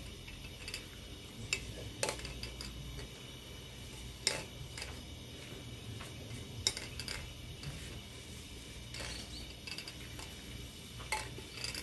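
Hands mixing sliced onions with gram flour and spices in a stainless steel bowl, with a few sharp metal clinks spread through, over a faint low hum.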